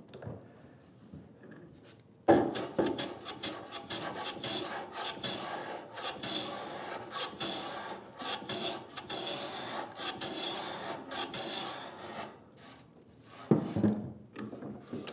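Hand plane shaving the end grain of a pine board in many quick, rasping strokes, trimming off the fuzzy fibres left by the saw cut. The planing starts abruptly about two seconds in and stops near the end, followed by a single loud knock of wood on the bench.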